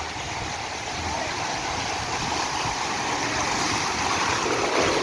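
Steady rush of sea water, with wind buffeting the microphone.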